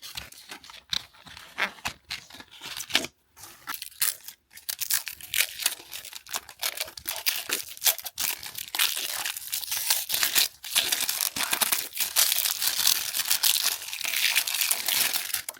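Mini Bratz mystery-toy packaging being torn open and crinkled by hand: scattered rips and crackles that turn into dense, continuous crinkling about halfway through.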